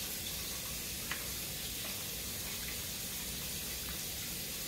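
Tap water running steadily into a sink, an even rushing hiss, with a faint click about a second in.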